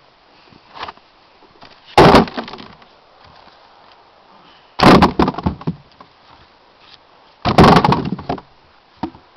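Freshly sawn firewood rounds knocking and clattering against each other as they are handled out of a log holder: three loud wooden clatters a little over two seconds apart.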